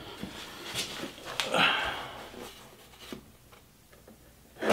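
Light handling knocks and a brief scrape of wood on wood as a board is set across a vise's wooden jaw liner, with a sharper knock near the end.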